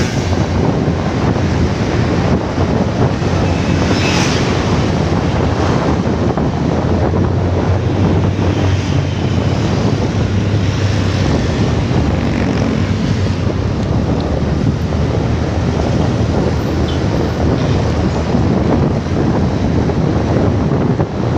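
Steady wind rush buffeting the microphone of a motorcycle riding at road speed, with engine and road noise underneath.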